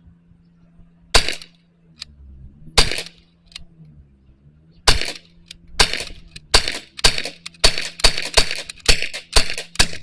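CO2 Glock BB pistol firing about a dozen shots, each a sharp crack: a few spaced shots at first, then about two a second through the second half as the magazine is emptied.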